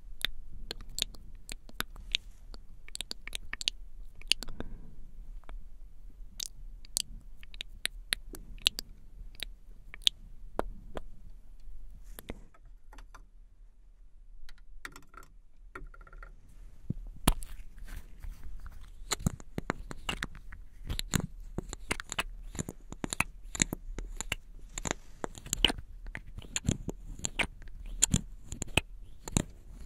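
Close-miked ASMR mouth sounds: wet lip smacks and tongue clicks, sparse at first and coming thick and fast in the second half.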